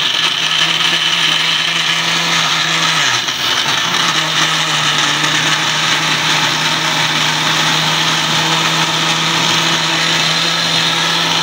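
Electric countertop blender grinding tomatoes and green chillies with a little water into a gravy paste, its motor running steadily. About three seconds in, its pitch drops and it picks up again a second later.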